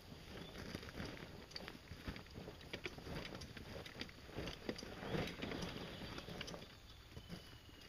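Boots scuffing and crunching on loose dirt and rock, with scattered small knocks, as a Suzuki Z400 ATV is pushed and wrestled by hand; low wind rumble on the microphone underneath.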